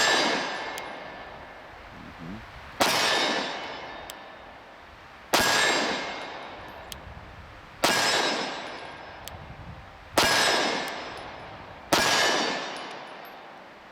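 Six shots from a SIG Sauer P365 9mm pistol firing 124 grain V-Crown hollow points, fired at an unhurried pace about two and a half seconds apart. Each shot is followed by a steel target ringing out and fading over a couple of seconds.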